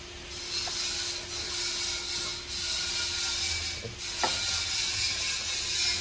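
Ratchet wrench clicking in several strokes with short breaks between them as the diesel engine is turned over by hand, pulling a new timing chain through.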